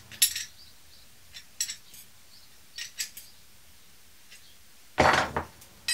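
Spanner clicking against the clamp bolts of a brake-pipe flaring tool as they are tightened on a copper brake pipe: a few sharp, scattered metal clicks, then a louder metal clatter about five seconds in.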